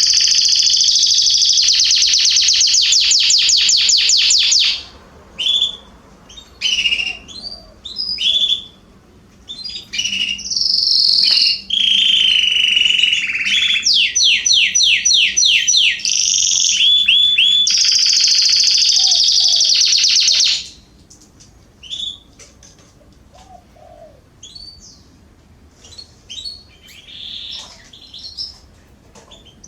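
Canaries singing: loud, high rolling trills of fast repeated notes that break off about five seconds in, start again around ten seconds and run until about twenty seconds, then give way to softer, scattered chirps.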